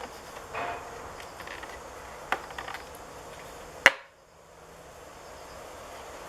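A few sharp clicks over a steady hiss, the loudest a single snap about four seconds in, after which the hiss drops away.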